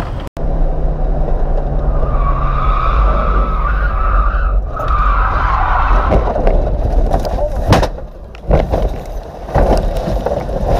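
A car's engine runs hard as the car drives off-road over dirt, with a steady high whine for a few seconds. Then come several heavy knocks and thumps as it jolts over rough ground and throws up dust.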